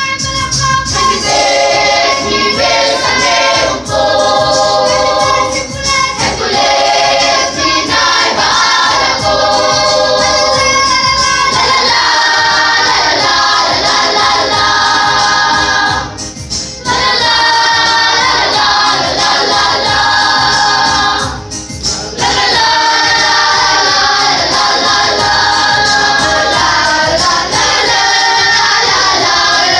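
A children's and youth church choir singing, with two brief pauses between phrases a little past halfway.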